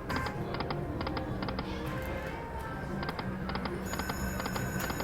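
Aristocrat Lightning Link slot machine's game sounds: quick clusters of clicking ticks over electronic music tones, with a high ringing chime coming in near the end.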